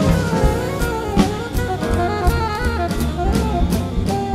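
Big band playing swing jazz live: saxophones and brass over drum kit and bass.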